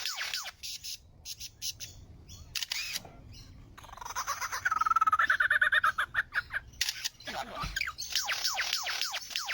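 A bird calling: quick downward-sweeping notes, then a quieter stretch of scattered clicks. After that comes a loud, fast rattling passage that sounds like a camera shutter, and near the end the rapid downward notes return.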